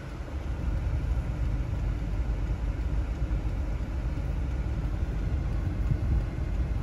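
Steady low rumble of a car heard from inside the cabin.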